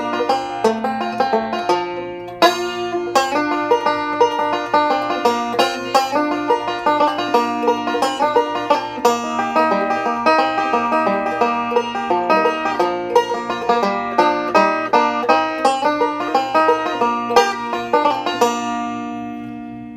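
Recording King M5 five-string resonator banjo picked bluegrass-style with fingerpicks, in quick forward and reverse rolls, capoed at the third fret in the key of B-flat. Near the end the picking stops and the last notes ring out and fade.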